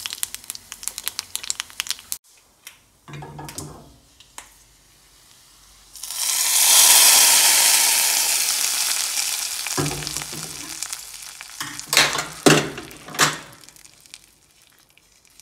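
Mustard seeds and dry red chillies crackling in hot oil in a small iron kadai for the first two seconds. About six seconds in, the hot tempering is poured onto tamarind curry in a clay pot and hisses loudly, fading over a few seconds. A few sharp knocks follow near the end.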